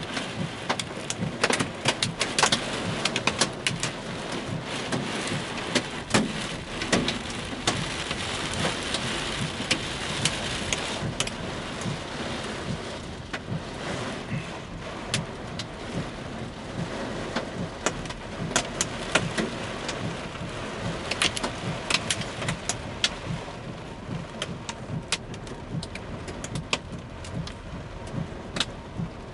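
Heavy thunderstorm rain mixed with hail pelting a car's roof and windows, heard from inside the car: a steady rush of rain with frequent sharp clacks of hailstones striking the car. The downpour is heaviest in the first half and eases somewhat after that.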